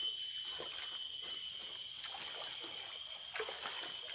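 Water trickling and sloshing as feet step along a log half-submerged in a shallow forest stream, over a steady high-pitched drone of forest insects.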